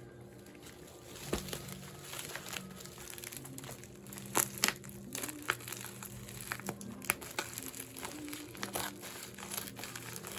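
Packaging being handled: irregular crinkling and crackling, with sharper crackles scattered throughout.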